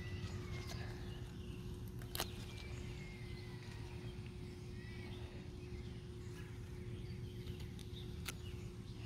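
Two sharp snips of a small hand pruner cutting spinach stems, about two seconds in and near the end. Underneath are faint high wavering cries in the distance and a steady low hum.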